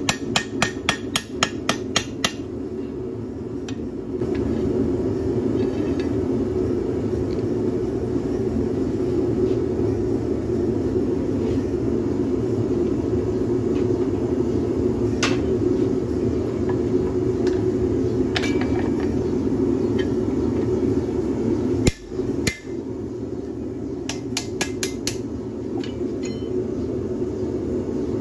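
Hammer striking hot leaf-spring steel on an anvil. There is a quick run of ringing blows at the start, a few single strikes in the middle, and another quick run a little before the end, all over the steady roar of a gas forge.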